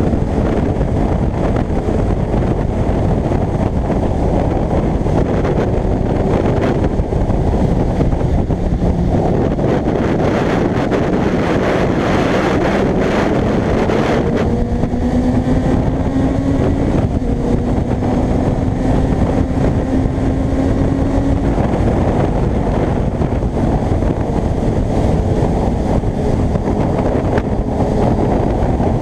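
Heavy wind buffeting on the microphone over the running inline-four engine of a Kawasaki ZX-6R motorcycle at road speed. The engine note climbs slowly through the middle as the bike accelerates, then holds steady.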